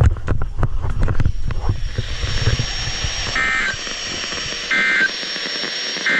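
A weather radio receiver sounds three short warbling data bursts, about 1.4 seconds apart, over steady receiver hiss with a faint high whistle. These are the EAS/SAME end-of-message code that closes a NOAA Weather Radio required weekly test. Before the bursts there is crackling noise with a low rumble.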